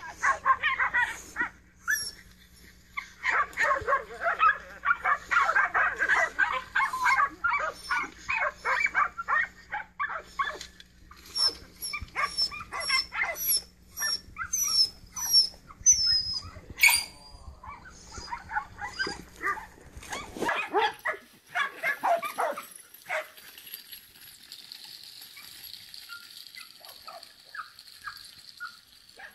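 Dogs barking and yipping in quick, uneven runs, mixed with high, falling whining yelps. The barking thins out about three quarters of the way through, leaving a steady high hiss.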